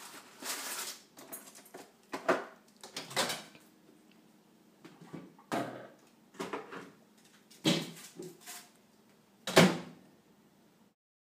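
Handling knocks and clatters: a boxed frozen lasagna tray is unpacked and put into an over-the-range microwave, with the microwave door opening and then shutting with the loudest thump near the end.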